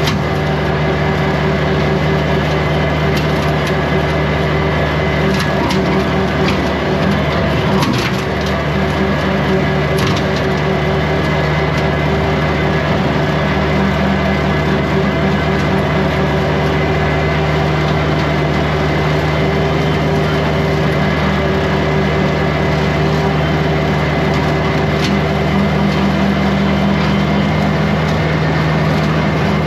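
Kubota compact tractor's diesel engine running steadily under load, driving a rotary brush cutter. Sticks and brush crack and splinter under the blades, most of it between about three and ten seconds in, with another snap later on.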